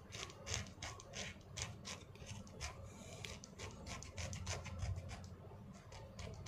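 Utility-knife (cutter) blade scraping hardened skin off the sole of a foot in short, quick strokes, about three a second.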